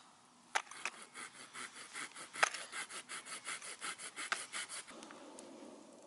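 Rapid, even rasping strokes, about four a second, of something hard being scraped by hand; they stop about five seconds in, and a steady low rush takes over.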